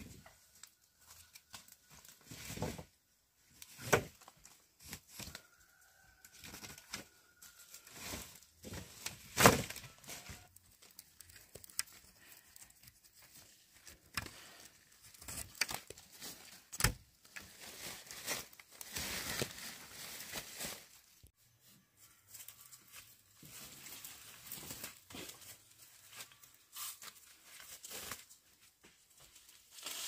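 Irregular rustling, crackling and tearing, broken by scattered sharp knocks and taps. The loudest knock comes about nine and a half seconds in.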